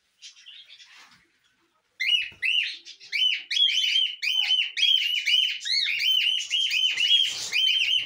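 Cockatiels calling: a fast run of short, rising-and-falling chirps, about two or three a second, starting about two seconds in.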